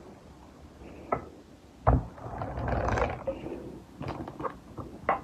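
A drawer being opened and something put into it. There is a click, then a thump about two seconds in, then rustling and clattering of the items inside, and a few light knocks near the end.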